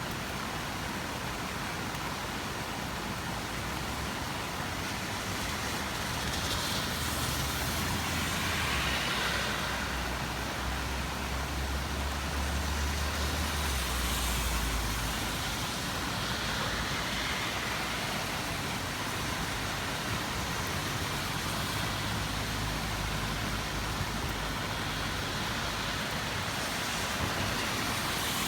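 Steady rain hiss with road traffic passing on wet pavement: several vehicles swell and fade, the loudest a low rumble about twelve to fifteen seconds in.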